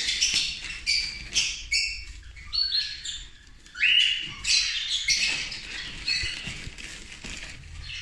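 Cockatiels calling from their cages: many short, high chirps and squawks, some sliding in pitch, one after another. Under them, the soft rustle of wood shavings being spread by hand in a wooden nest box.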